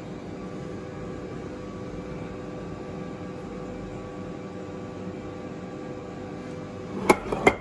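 Steady machine hum with several fixed tones in it, from an OCA vacuum laminating machine. Near the end come a few short, sharp knocks as the phone in its rubber mould is set on the laminator's bed.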